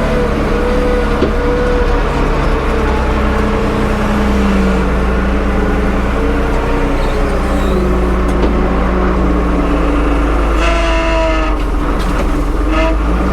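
Tractor engine running steadily, its pitch drifting slightly as it works. A brief higher squeal or whine sounds about 11 seconds in.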